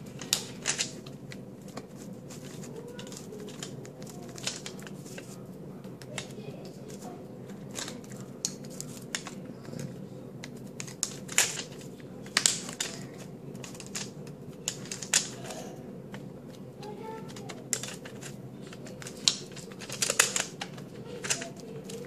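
Scattered small clicks and taps of fingers and plastic as a laptop memory module is pushed and worked into its slot. The module is being reseated because it had not gone in properly. A steady low hum runs underneath.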